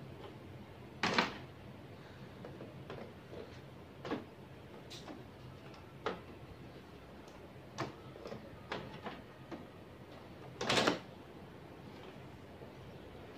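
Toner cartridges being handled and pushed into the front of an HP Color LaserJet MFP178nw laser printer: light plastic clicks and knocks, with two louder clunks about a second in and near the end as cartridges go into place.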